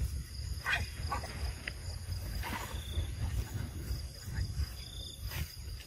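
Outdoor ambience with a steady low rumble, and a few faint short macaque calls, the first about a second in and another near the middle.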